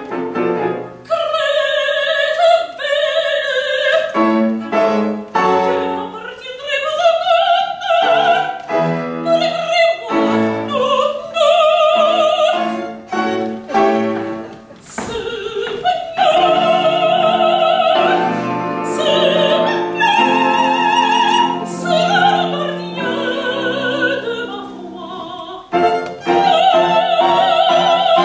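Soprano singing an operatic aria with wide vibrato, in phrases broken by short breaths, accompanied by piano and strings.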